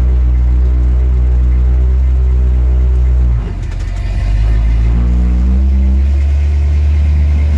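Dodge 383 big-block V8 in a 1970 Dodge D100 pickup running under way, heard from inside the cab as a steady low drone. About three and a half seconds in, the note dips briefly, then settles at a new pitch that climbs slightly.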